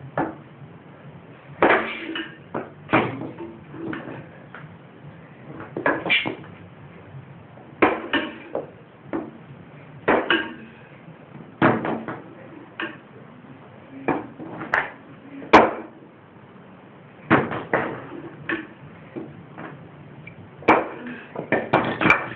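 Irregular metal knocks and clanks of tools working on a lawn mower, a couple of dozen sharp strikes spread unevenly, with a cluster near the end, as a stubborn part that was really hard to get off is worked loose.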